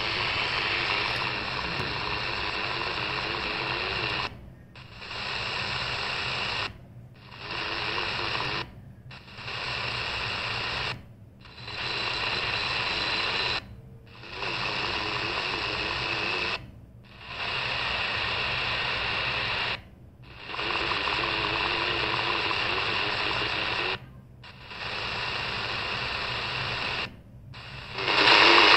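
CS 106 DSP radio's speaker hissing with medium-wave static. The sound cuts out briefly nine times, about every two to three seconds, as the set mutes while stepping between frequencies during a band scan.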